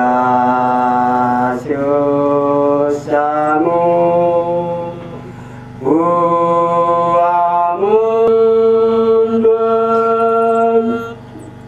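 A man chanting a recitation in long held notes through a microphone, the pitch stepping between notes with a rising glide about halfway, then one long held note that stops near the end.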